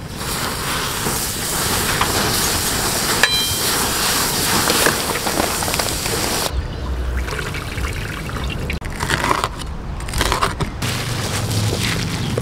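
Hot cooking oil sizzling and crackling as pieces of pork deep-fry, a dense, steady hiss. About six seconds in it cuts off, giving way to quieter, uneven handling noises.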